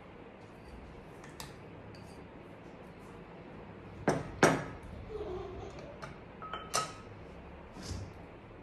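A wire whisk and spatula clinking against a glass mixing bowl while batter is scraped out: two sharp clinks about four seconds in, then a few lighter knocks.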